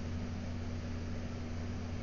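Steady low hum with a constant hiss, unchanging and with no distinct events.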